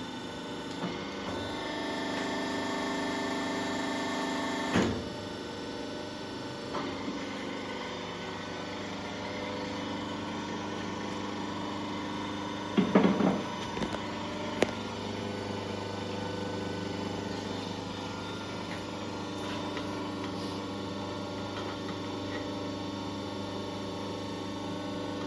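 Workshop crimping machine clamping the rubber bellows ring of a BMW G12 air-suspension strut, over a steady machine hum. A motor runs louder for about three seconds and stops with a thump; about halfway through come a few sharp metal knocks and a click.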